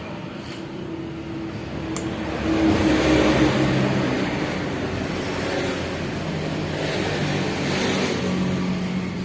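Suzuki GT750 two-stroke triple engine running, the revs rising briefly about two to three seconds in and then settling to a steadier speed.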